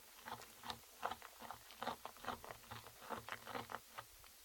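A spoon stirring sticky slime mixture of glue, shaving foam and borax water in a bowl, making faint, irregular wet smacks and clicks several times a second as the slime starts to come together.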